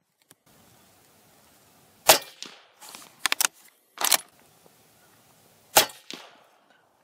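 Suppressed 300 Blackout bolt-action rifle firing subsonic S&B 200-grain rounds, two quiet shots about two seconds in and near the end. Between them the bolt is worked, with two short metallic clacks.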